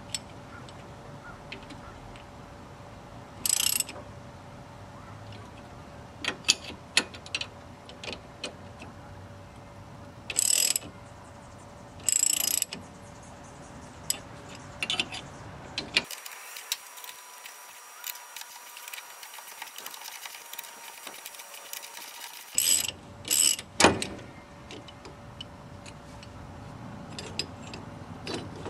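Metal tools clicking and clinking in short, irregular bursts as a wrench works the bolts of a homemade hub puller fitted to an MGB's rear axle hub, drawing the hub off the half-shaft.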